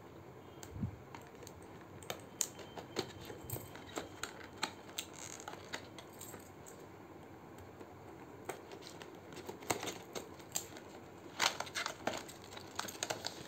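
A small knife blade cutting and scraping at the seals of a cardboard box, giving scattered sharp ticks and scratches. In the last few seconds the box flaps are pulled open, with a denser run of clicks and rustles.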